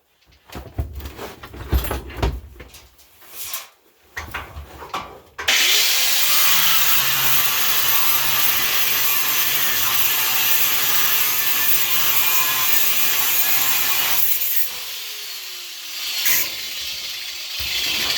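Handheld power cutting tool cutting the old hand-crank winch off a truck. After a few seconds of knocks and handling, it starts suddenly about five seconds in and cuts steadily for around nine seconds, then eases off with a falling whine as the motor winds down, and picks up again near the end.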